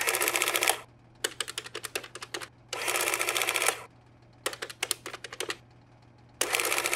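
Rapid mechanical clicking in five bursts of about a second each, with short pauses between, over a faint steady low hum.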